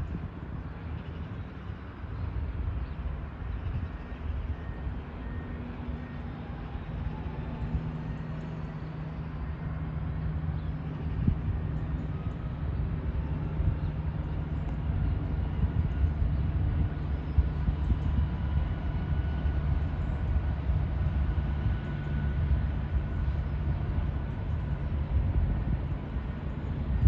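Class 66 diesel locomotive's two-stroke V12 engine approaching with its freight train, a steady low hum that slowly grows louder.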